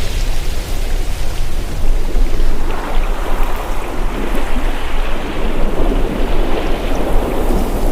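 Ocean surf washing in, with a wave surging up about three seconds in and running on for several seconds, over a steady low rumble of wind.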